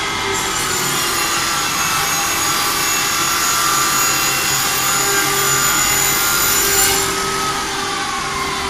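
Door sizing machine's electric saw on its travelling carriage cutting along the edge of a wooden door, a steady machine whine with a thin high tone that stops about seven seconds in as the cut ends, while the machine's motors keep running.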